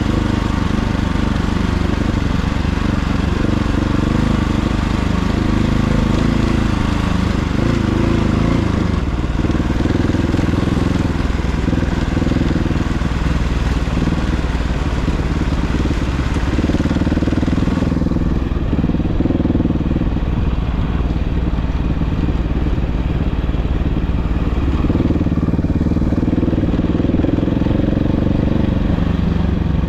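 Off-road vehicle engine running steadily under way, with a rushing hiss on top. The hiss drops away about two-thirds of the way through while the engine carries on.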